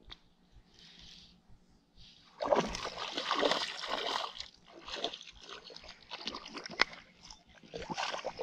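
A small smallmouth bass splashing at the surface as it is reeled in to the bank, in a long burst about two seconds in and several shorter splashes after.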